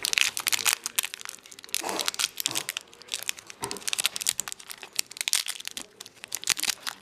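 Kinder Surprise egg's foil wrapper crinkling and tearing as it is peeled off a soft, melted chocolate egg, in quick irregular crackles.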